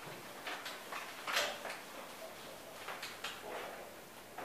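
Whiteboard eraser wiping a whiteboard clean: a series of short, faint rubbing strokes, irregularly spaced.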